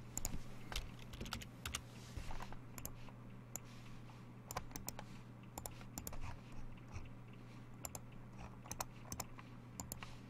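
Typing on a computer keyboard: irregular sharp key clicks, some in quick pairs, over a steady low electrical hum.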